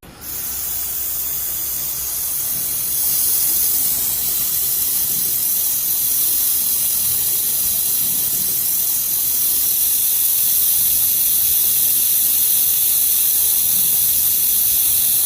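Handheld laser welding torch running with a steady hiss of gas flowing from its nozzle. The hiss gets louder about three seconds in.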